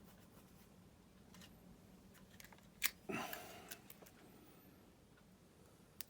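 A plug-in relay being swapped out by hand on a control board: a sharp click a little under three seconds in, a short scraping rustle right after it, and another click near the end, over a faint steady hum.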